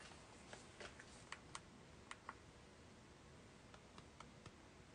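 Near silence with faint, irregular clicks or taps, about ten in all, bunched in the first half and again near the end.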